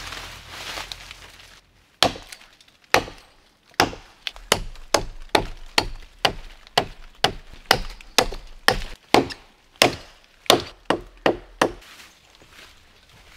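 Small hatchet chopping into a thin standing tree trunk: about 25 sharp blows, starting about two seconds in and quickening to roughly three a second, stopping near the end.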